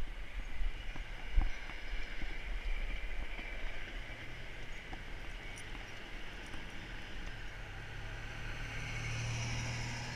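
Steady tyre and wind noise from a bicycle rolling along a paved trail, with a few bumps in the first couple of seconds. Near the end a pickup truck comes up and passes on the road alongside, its hum growing louder.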